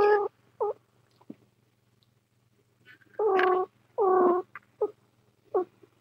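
A cat meowing: a meow at the start and a short chirp just after, then two drawn-out meows about three and four seconds in, followed by a few brief chirps.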